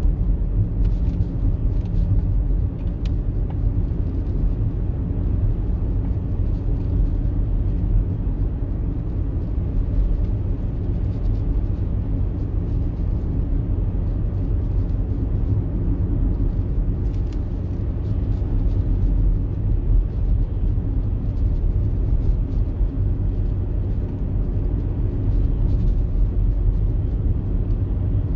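Inside the cabin of an Audi Q5 with the 2.0 TDI four-cylinder diesel, cruising steadily at about 60 km/h at low revs: a steady low engine drone mixed with road and tyre rumble.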